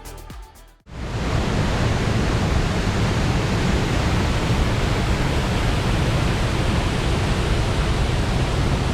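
Background music ends within the first second, then a waterfall's steady rushing roar.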